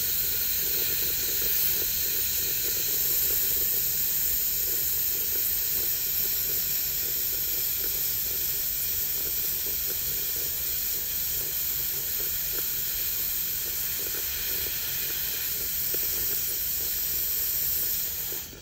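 Slow-speed dental handpiece running a purple polishing point against a crown prep on a plastic typodont tooth. It gives a steady high hiss with a low buzz, smoothing and polishing the prepared tooth. The hiss cuts off just before the end.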